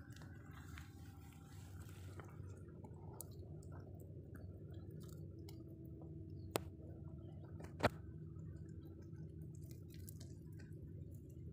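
Faint crackling and ticking from a smouldering straw fire roasting fish on sticks, with two sharp pops about a second apart a little past the middle.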